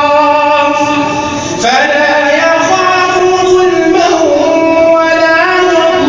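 A man's voice chanting Quran recitation in long, drawn-out melodic notes that bend slowly in pitch, with a short breath break about one and a half seconds in.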